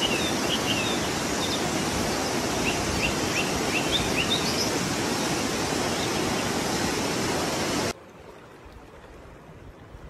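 Steady rush of a waterfall and fast rocky mountain river, with a few short, high chirps in the middle. The rush cuts off suddenly about eight seconds in, leaving a much quieter hiss.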